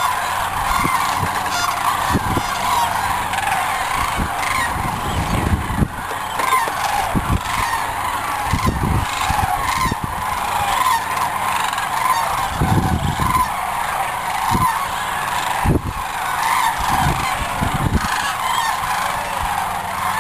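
A large flock of sandhill cranes calling together in a continuous warbling, bugling chorus. Wind buffets the microphone in irregular low gusts.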